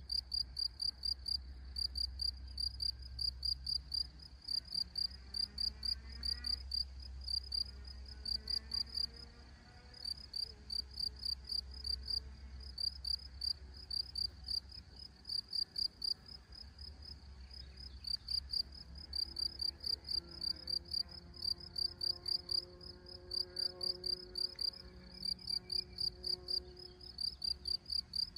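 Crickets chirping in a steady, even rhythm, about three high chirps a second.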